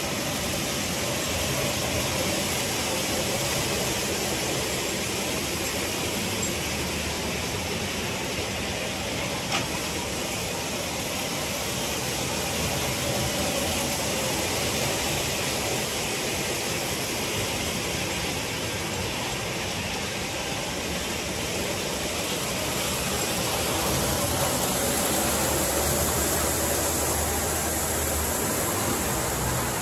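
LGB F7 G-scale model diesel train running on a garden railway: a steady low rumble and rail noise under a constant hiss, getting a little louder near the end.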